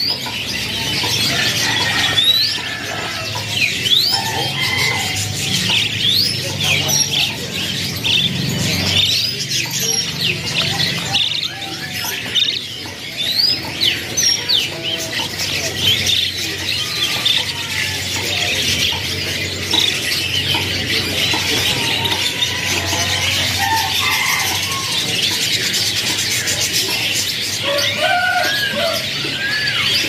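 A cage of young domestic canaries chirping and calling without a break: many short rising and falling chirps overlapping. Some lower, curving calls come in near the end.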